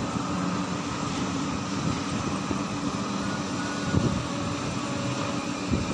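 An engine running steadily with a low hum, with two short knocks, one about four seconds in and one near the end.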